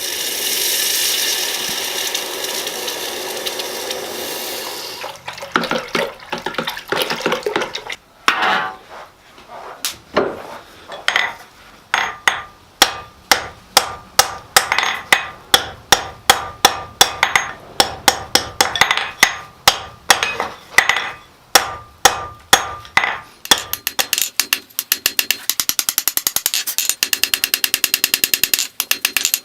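Hammer blows on steel at the anvil while forging an S hook, roughly two strikes a second with a ringing note, after about five seconds of steady hiss. Near the end the strikes give way to fast, light taps.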